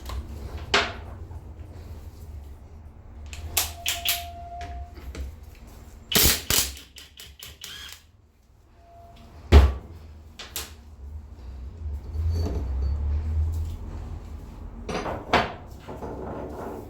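Hand tools and metal engine parts being handled and set down: scattered clicks and knocks, a couple of short metallic rings, and one hard knock about halfway through.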